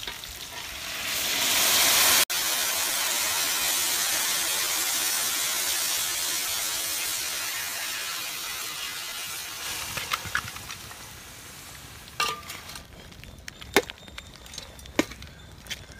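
Fish curry poured into a hot aluminium pan of oil-tempered tapioca, setting off a loud sizzle that slowly dies away over several seconds. In the last few seconds a metal ladle clinks and knocks against the pan as the curry is stirred.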